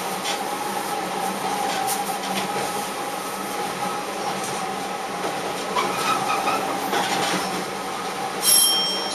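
Diesel railcar running over points, heard from inside the cab: a steady running hum with wheel noise from the rails. About eight and a half seconds in comes a short, sharp, high metallic squeal, the loudest sound here.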